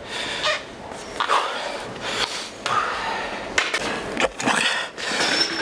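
Hard breathing with forceful exhalations during a weight-training set, with scattered clicks and knocks of gym equipment.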